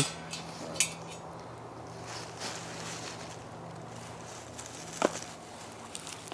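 Quiet handling of a stainless-steel camp cup and coffee pot: a light click about a second in and a sharp metallic clink with a brief ring about five seconds in, over a faint low steady hum that fades out about halfway.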